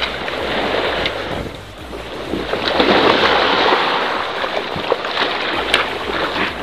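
Wind rushing over an action camera's microphone with sea water washing around a kayak. The rush dips briefly, then swells again past the middle, with a few light knocks near the end.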